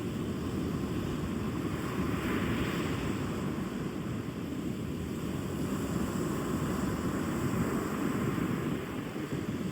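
Rough sea surf: a continuous wash of heavy waves, with a brighter hiss of breaking water swelling about two seconds in.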